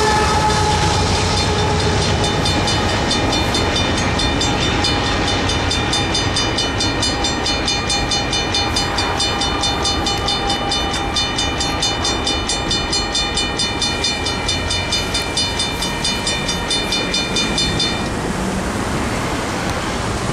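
The rear GE AC4400CW locomotive of a freight train passes with a rumble and a whine that falls slightly in pitch, and the train noise fades. Under it the crossing's original Modern Industries mechanical bell rings steadily with fast, even strokes, then stops suddenly about 18 seconds in as the crossing deactivates once the train has cleared.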